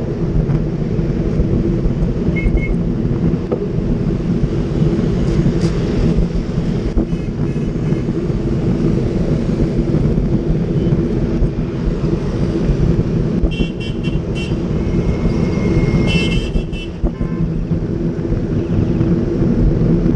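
Busy road traffic heard from a moving bicycle: a steady rumble of engines and road noise. Vehicle horns toot now and then, with a cluster of short beeps and one longer held honk about two-thirds of the way through.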